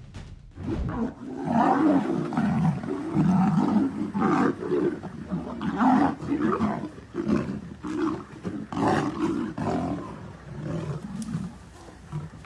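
Large animals growling and roaring aggressively in a long run of loud, irregular outbursts, starting about a second in after music cuts off.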